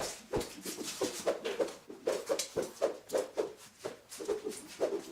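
Hand saw cutting through a piece of wood, with quick back-and-forth strokes at about three a second and a short pause near the middle.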